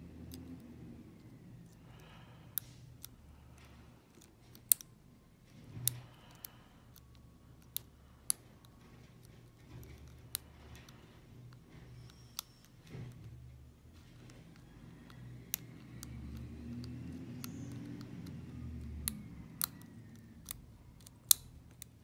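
Steel lock pick and tension wrench working the pins of an EVVA euro cylinder lock: sharp metallic clicks and ticks at irregular intervals, with low rubbing from the hands holding the lock.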